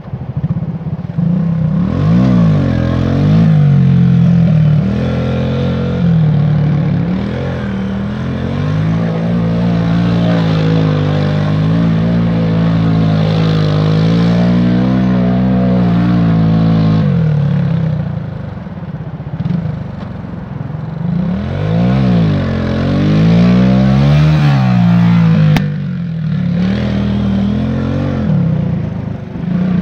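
250cc quad bike engine revving up and down over and over as the quad spins doughnuts on loose dirt. The revs hold fairly steady for several seconds in the middle, then rise and fall quickly a few times near the end.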